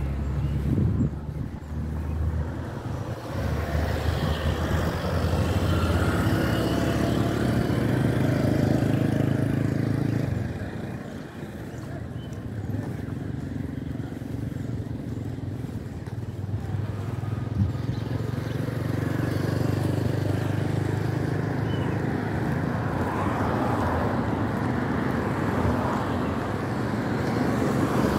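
Motor vehicle driving on the road: a steady engine hum under road and tyre noise. The engine eases off about ten seconds in, then picks up again.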